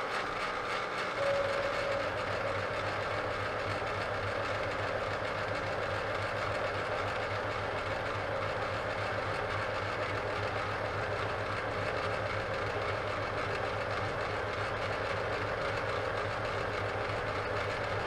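Vertical milling machine running steadily, its roughing end mill taking a flattening cut across the top corner of a 1¼-inch square metal bar.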